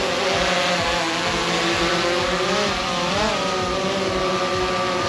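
DJI Phantom 3 Pro quadcopter hovering close by: its four motors and propellers make a steady buzzing whine of several layered pitches over a rush of propeller wash. The pitch swells briefly and drops back about three seconds in as the motors adjust their thrust.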